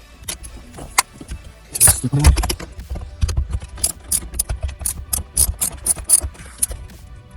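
Clicks, knocks and rattles of dashboard parts and trim being handled and worked loose, with a heavier thump about two seconds in and a quick run of clicks toward the end, over faint background music.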